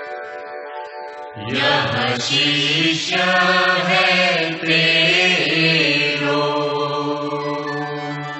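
Hindu devotional aarti chant being sung. A steady held note gives way, about a second and a half in, to a louder sung phrase that bends in pitch, then settles back to a held tone near the end.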